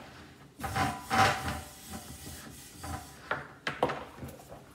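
An electric indoor grill being handled: its non-stick grill plate rubbing and scraping on the base as it is shifted and seated, then several light knocks and clicks near the end.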